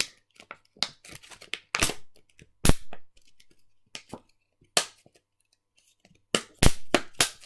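Moulded plastic blister packaging being pressed like a pop it: a string of sharp, irregular pops and crackles as the bubbles give way.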